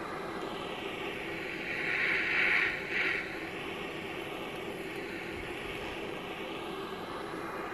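Multi-jet butane torch lighter burning with a steady rushing hiss. It swells louder for about a second around two seconds in, dips briefly, and surges once more near three seconds.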